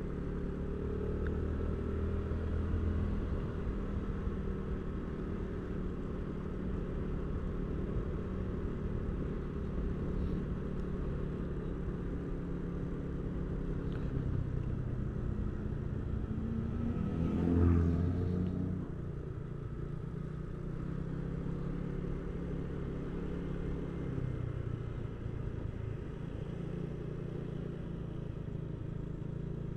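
A motor vehicle engine running steadily while travelling along a road, with a brief louder swell of engine noise that rises and falls about seventeen seconds in.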